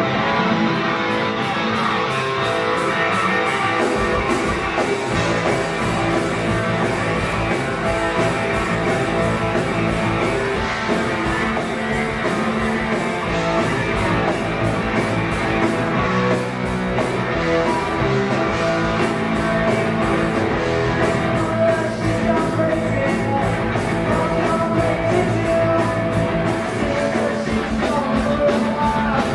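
Live rock band playing: electric guitar, bass guitar and drums, loud and continuous, with the deep bass coming in about four seconds in.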